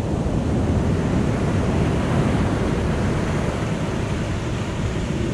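Ocean surf washing up the beach, a steady rush of water, with wind on the microphone.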